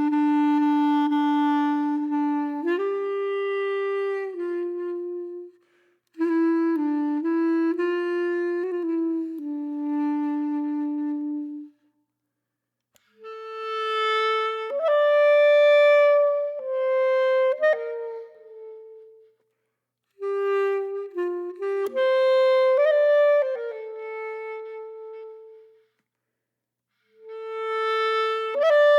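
Solo woodwind instrument playing a slow melody of long held notes, in four phrases separated by short silences.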